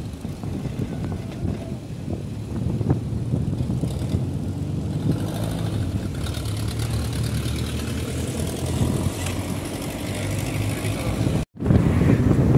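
Škoda Favorit driving along: a steady low engine and tyre rumble, with wind on the microphone that grows louder. The sound cuts out for a moment near the end.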